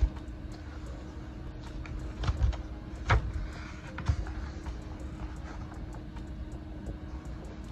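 Sketchbook page turned by hand: a few sharp handling knocks and a brief papery swish between about two and four seconds in, over a steady low hum.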